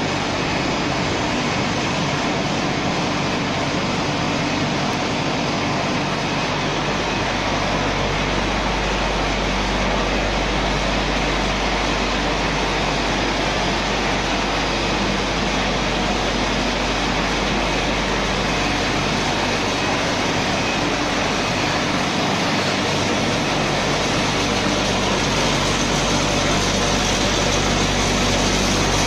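A biomass carbonization plant running: its conveyors, feeder and motors make a steady mechanical hum with a constant rushing noise.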